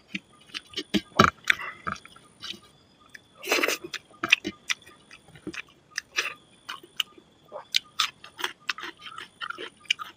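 Close-up eating sounds of chicken curry and rice eaten by hand: chewing and lip smacking, with wet squishing as fingers mix rice and curry on a steel plate. The sound is a run of irregular short clicks and smacks, with louder wet bursts about a second in and again near four seconds.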